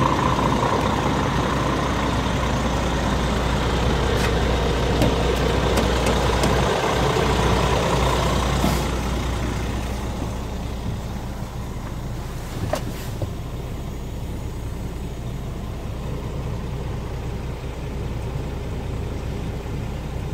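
Scania R450 tractor unit's 13-litre inline-six diesel idling. It is heard at the front of the truck, then more muffled from inside the cab from about nine seconds in, with a few short clicks along the way.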